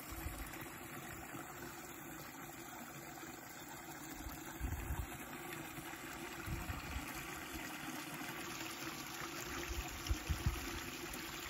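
Steady trickle of running water, with a few soft low bumps on the microphone partway through.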